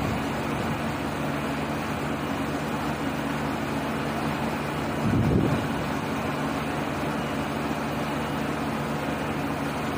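Steady machine hum, a low drone of several even tones under a constant noise, with a brief low rumble about five seconds in.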